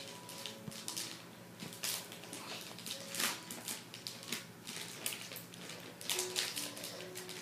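Wrapping paper crinkling and tearing in irregular rustling bursts, the loudest about three seconds in and again near the end.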